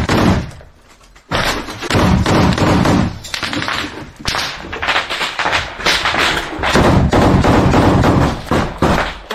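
Small-arms gunfire in rapid bursts of close, loud shots, with a brief lull about a second in.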